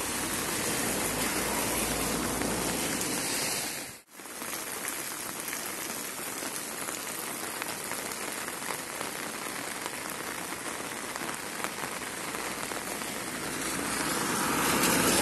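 Heavy steady rain hissing on flooded streets and wet ground. It breaks off for an instant about four seconds in, and near the end a car's tyres on the wet road swell the sound louder.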